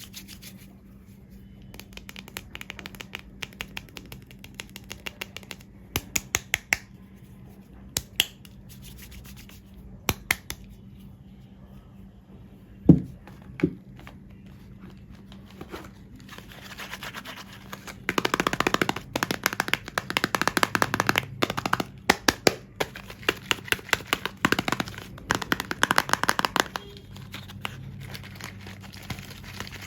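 Soap packaging being handled and unwrapped by hand: scattered taps and scratches, a sharp knock about 13 seconds in, then dense crinkling of the wrapping for several seconds.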